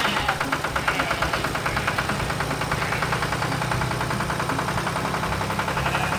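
Vehicle engine running steadily, with a fast, even chugging pulse and a low hum.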